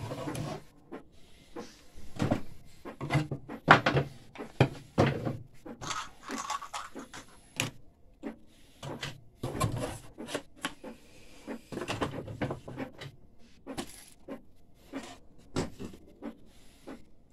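Irregular clicks, knocks and clunks of plastic and metal parts of an Epson 1400-based DTG printer being handled during disassembly, with no motor or pump running.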